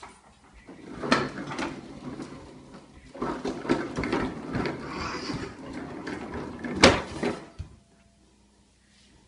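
Hard plastic wheels of a toddler's ride-on toy car rolling and rattling as it is pushed over the floor, with a sharp knock about seven seconds in before the rolling stops.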